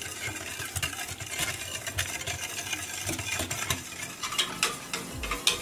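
Wire whisk stirring a thin custard mixture in a stainless steel saucepan, its wires scraping and clicking irregularly against the pan's sides and bottom.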